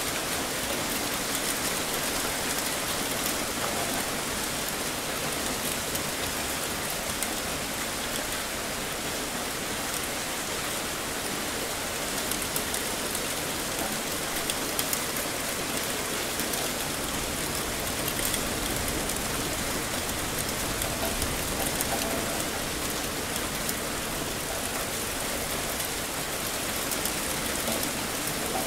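Heavy rain falling steadily, a dense even hiss of drops pattering on surfaces, with no let-up.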